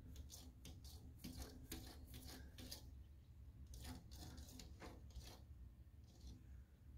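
Tabby cat's paw scratching and rubbing on window glass: a string of faint, short scratchy strokes that stops about five and a half seconds in.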